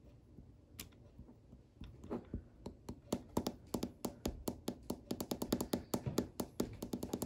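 Fingertips tapping repeatedly on the glass screen of an iPhone 4S, which is stuck on its boot logo. There is a single tap near the start, then from about two seconds in a quick, uneven run of taps, several a second.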